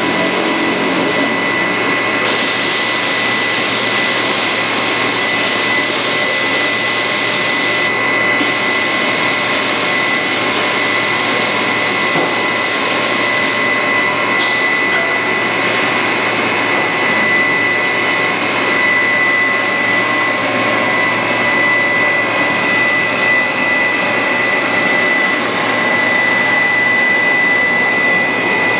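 Steady, loud machinery noise from a grinding-ball production line: a continuous hiss with a constant high whine running through it.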